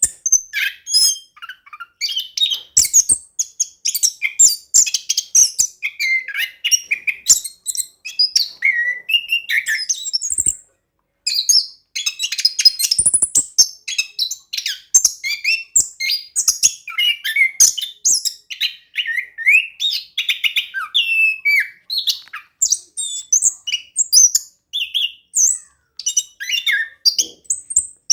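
Orange-headed thrush singing in full, continuous song: a long rolling run of rapid, varied chirps, whistles and trills, with one short pause about ten seconds in.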